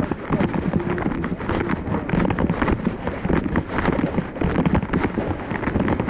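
Handling noise on a covered camera's microphone: dense, irregular rubbing and light knocking as the camera is carried or moved around.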